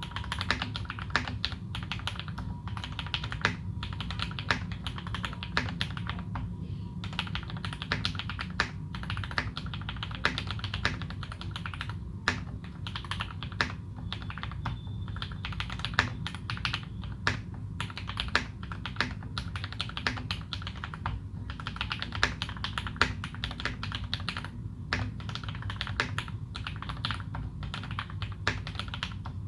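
Continuous typing on a Leopold FC660M mechanical keyboard with modded Cherry Retooled Black linear switches and GMK Dolch ABS keycaps. A dense patter of key strikes, with scattered louder clacks and a few brief pauses.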